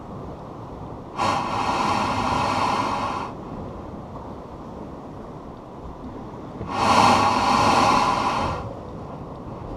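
Two long gusts of air and spray rushing out of a blowhole in the lakeshore ice, each lasting about two seconds, one soon after the start and one past the middle. Waves surging into the hollow beneath the ice force the air out. A low rumble runs between the gusts.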